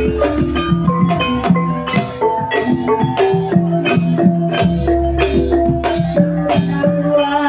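Gamelan ensemble playing: mallet-struck metallophones ringing melodic notes over a steady drum beat about twice a second, with a deep low tone swelling twice underneath.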